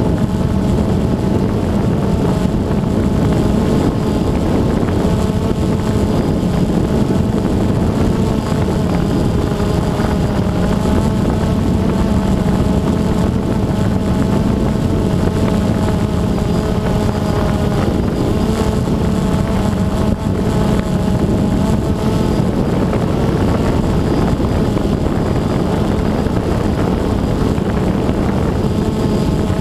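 DJI Phantom 2 quadcopter's four electric motors and propellers hovering, as heard from the camera on board: a steady hum of several held tones that waver slightly, with some wind noise on the microphone.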